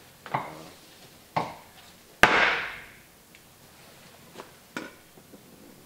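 Hammer blows on the car's sheet-steel inner fender, denting it to make room for the turbocharger: five separate knocks, the third, a little over two seconds in, the loudest, with a ring that dies away over most of a second.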